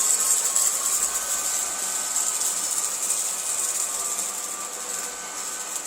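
Cordless vacuum cleaner running steadily: a high airy hiss with a faint whine, gradually getting a little quieter.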